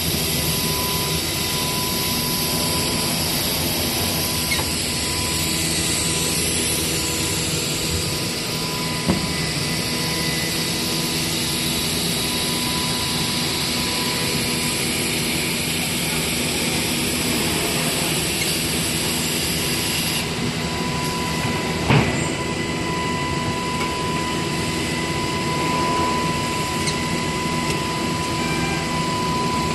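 CNC panel-cutting router lines and their dust extraction running together in a factory hall: a steady machine drone with several steady whining tones through it. A sharp knock sounds about 22 s in, and a smaller one about 9 s in.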